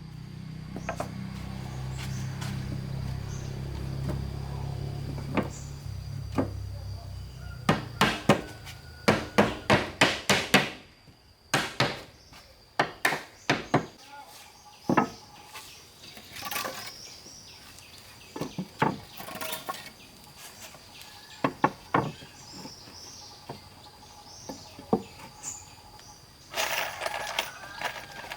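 A hammer striking wood, with a quick run of about eight blows near the start of the middle, then scattered single knocks. A low rumble fades out about six seconds in.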